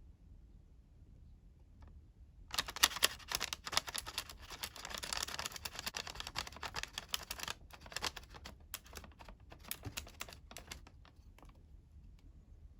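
Colored origami paper being folded and creased by hand: a crisp crackling rustle starting a couple of seconds in, densest for about five seconds, then thinning to scattered crinkles that stop about a second before the end.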